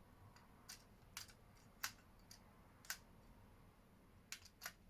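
Faint, irregular clicks and taps, about six in all, of a metal tool touching a disposable camera's flash circuit board while probing for the trigger contacts.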